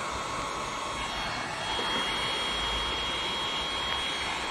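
Corded electric heat gun running, blowing a steady stream of hot air over window tint film on a windshield to shrink it. A steady high whine joins about a second and a half in.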